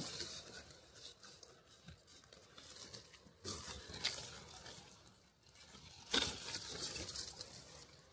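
Close rustling and crinkling handling noise, in a few short bursts, loudest about 3.5, 4 and 6 seconds in: hands working an overripe, rotting mushroom.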